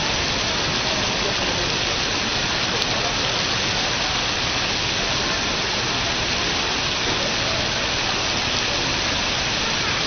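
Steady rushing and splashing of water pouring down from a computer-controlled waterfall display, with an even, unbroken noise.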